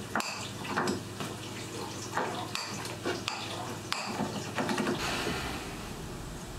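Small metal screws clinking and a plastic bag crinkling as screws are handled, with scattered light clicks and taps on wood. About five seconds in, these stop and a steady hiss takes over.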